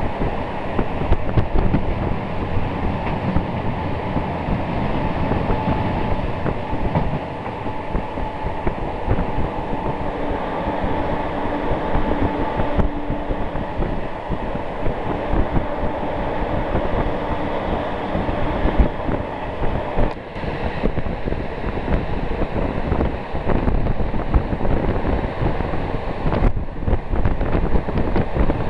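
Passenger train running on the rails, heard from inside the carriage: a steady rumble of wheels with repeated rail clacks, and a faint steady whine for several seconds in the first half.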